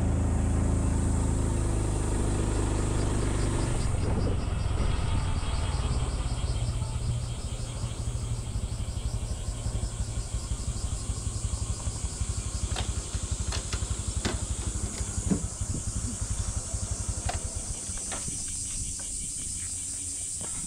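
Honda Super Cub C125's single-cylinder engine and exhaust on the move. The engine note drops away in the first few seconds, then runs on as a low steady rumble, with a few sharp clicks later on.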